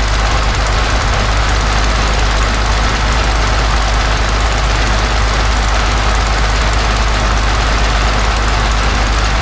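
Rolls-Royce Merlin XX 27-litre V12 aero engine, freshly rebuilt, running steadily on a test stand with its propeller turning.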